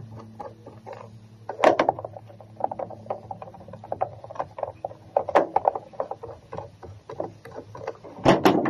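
Irregular clicks, knocks and clatter of a battery charger's case and hand tools being handled as it is taken apart, with a louder knock just under two seconds in and a burst of knocks near the end. A low steady hum fades out about two seconds in.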